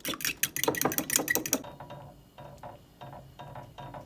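Eggs being beaten by hand in a ceramic bowl, the utensil clicking fast against the bowl at about six or seven strokes a second; about one and a half seconds in, the strokes become softer and slower.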